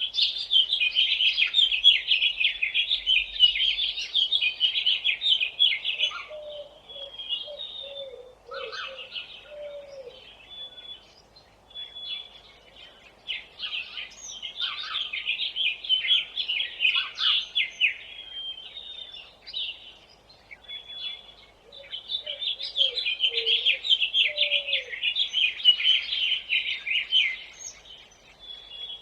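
Small songbirds chirping rapidly in dense bouts that rise and fall, with scattered single chirps between them. A few short, lower falling calls come in twice.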